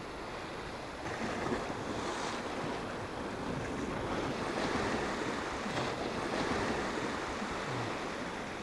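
Sea surf washing and breaking over rocks close by, swelling and easing, with wind on the microphone.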